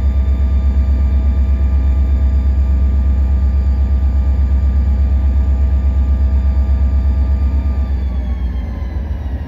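EMD SD40-2 diesel-electric locomotive's 16-cylinder two-stroke 645 diesel running steadily, heard inside the cab: a heavy pulsing rumble with a steady whine over it. Near the end the whine falls in pitch and the sound eases a little.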